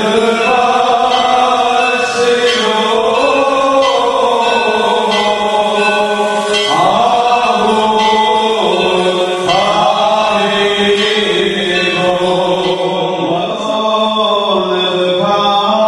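A group of Orthodox priests chanting a slow liturgical hymn in unison, holding long notes and sliding between pitches.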